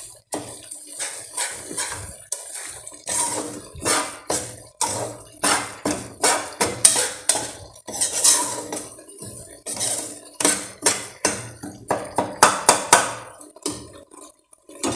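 Metal spoon scraping and clinking against a steel pot in short, irregular strokes while stirring ground dal cooking in oil.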